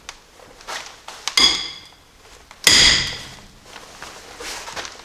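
Metal tools clanking on a Jeep's steering knuckle as a half-inch breaker bar and 12-point socket are worked on the front unit bearing's bolts. There are two sharp clanks that ring on briefly, about a second and a half in and just under three seconds in, the second the loudest, with lighter knocks between.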